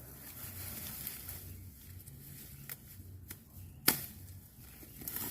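Crop stalks being cut by hand: rustling with a few sharp cutting snaps, the loudest about four seconds in.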